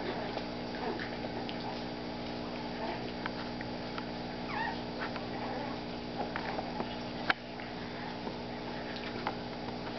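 A Chihuahua puppy and a blue heeler play-fighting: brief small whines and scattered scuffling clicks, with one sharp knock about seven seconds in, over a steady background hum.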